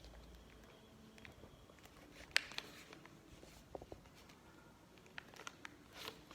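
A sheet of paper being handled and folded into a paper airplane: light rustles and scattered small clicks of creasing, with one sharper click about two and a half seconds in.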